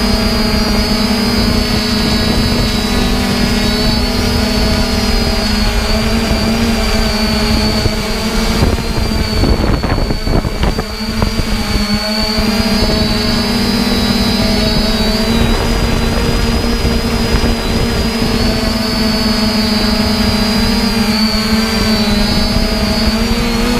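3DR Iris+ quadcopter's electric motors and propellers running steadily in flight, recorded from the drone itself: a constant multi-tone whine over a rough rumble of wind on the microphone. The whine wavers briefly about ten seconds in.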